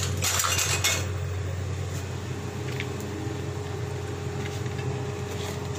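A steady low machine hum, with a short burst of hiss in the first second.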